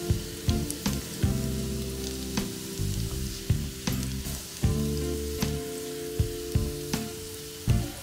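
Sliced shallots and garlic sizzling in hot oil in a frying pan as they are sautéed toward golden, stirred with a spatula, with occasional sharp ticks. Background music plays underneath.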